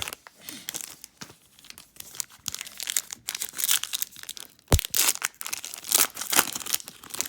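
Trading card pack wrapper crinkling and tearing as the pack is opened, with a sharp tap a little before five seconds in.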